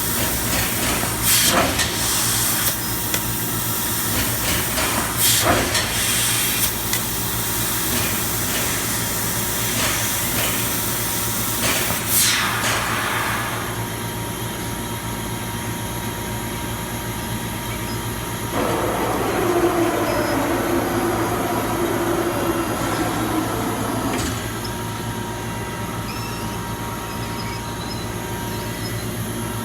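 Mazak Super Turbo X48 CO2 laser cutter running: a steady machine hum with hiss, broken by several short sharp bursts in the first half. About two-thirds through, a louder rushing stretch of several seconds.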